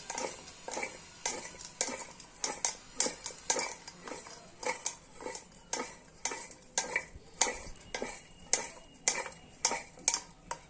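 A stainless steel bowl clanking as masala-coated okra strips are tossed and mixed in it, with a sharp knock about twice a second.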